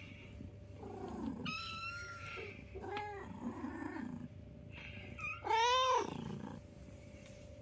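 Young kittens mewing several times in high, thin calls. The loudest and longest is an arched meow about five and a half seconds in. A faint steady hum runs underneath.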